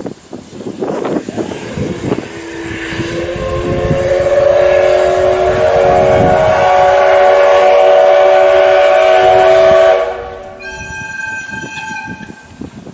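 A Kamaishi Line diesel train sounds a loud, sustained multi-tone note. The note starts about two seconds in, rises slightly, holds for around eight seconds and cuts off suddenly. A shorter, higher tone follows near the end.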